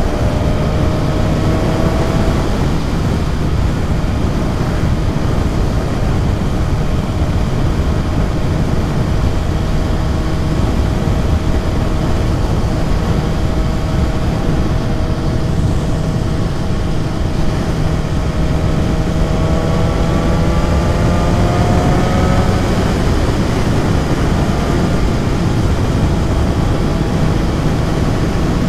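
BMW S1000RR's inline-four engine running at road speed under heavy wind rush over the microphone. The engine pitch rises and drops back twice, near the start and about two-thirds through, as if accelerating and shifting up.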